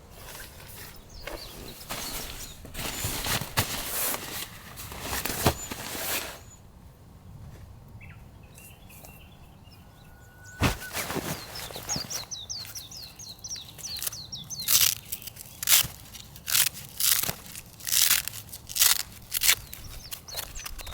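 Outdoor sounds: irregular rustles, knocks and handling noises, with a quick series of high bird chirps about twelve seconds in.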